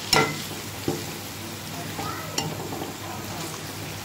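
Chicken and sliced onions sizzling in hot ghee as a metal spoon stirs them, the spoon knocking and scraping against the metal pot a few times, loudest right at the start.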